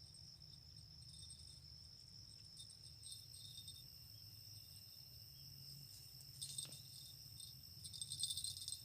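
Crickets chirping steadily in a high, pulsing trill, with a louder flurry near the end.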